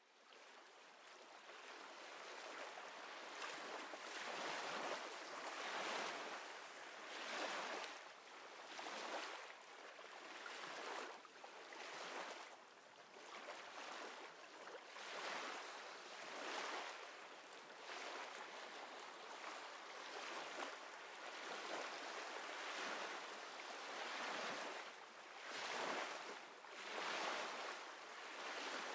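Gentle ocean surf, waves washing in and out with a swell of hiss every second or two, fading up at the start.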